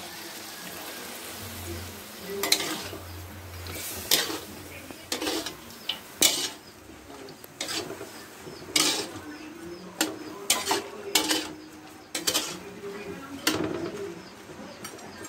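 A metal spatula scraping and clanking against a steel wok in irregular strokes as carrots are tossed with chicken and onions, over a light sizzle of frying.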